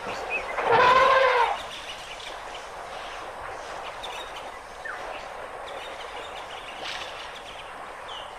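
An elephant trumpets once, about a second in: a loud, pitched call lasting under a second. Afterwards there is only a quiet outdoor background with a few faint, brief high chirps.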